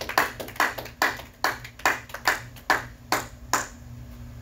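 Hands clapping in a steady rhythm, a little over two loud claps a second, with fainter claps between them; the clapping stops about three and a half seconds in.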